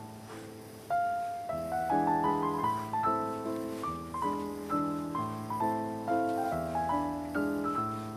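Background piano music: gentle chords and a melody, the notes struck in a steady, even pulse.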